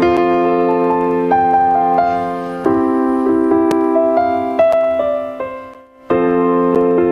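Software piano played from an Ableton Push's pads: sustained chords held on the sustain pedal, with single melody notes moving above them. The sound dies away just before six seconds in, and then a new chord is struck.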